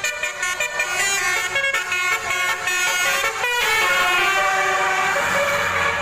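Basuri telolet musical bus horn playing a quick run of stepped multi-tone notes. A little past halfway the notes give way to a louder, steadier chord of horn tones over a rushing noise.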